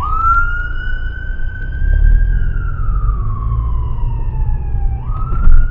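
Ambulance siren wailing: the pitch leaps up sharply, holds, then slides slowly down for about three seconds before leaping up again about five seconds in. Under it, the low rumble of the car's engine and road noise inside the cabin.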